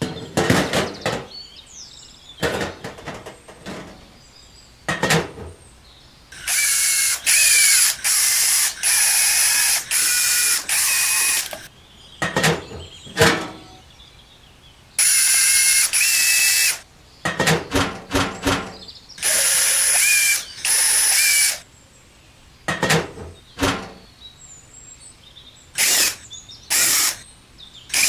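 Small electric drill/driver whining in short runs of about a second each, several in a row, with clicks and taps of handling between the runs.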